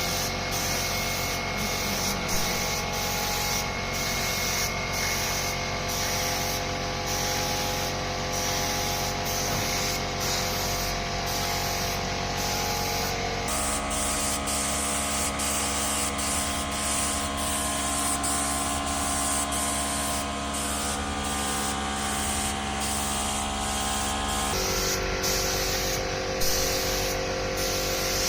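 Steady spraying hiss over a humming motor, typical of compressed-air or pressurised spray equipment. The tone of the hum shifts abruptly about 13 seconds in and again near 25 seconds.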